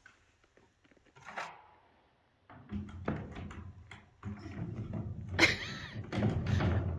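Knocks and scraping of a hanging tool being fitted against a wooden arena wall, over a steady low rumble of handling, with a brief high squeak about five and a half seconds in.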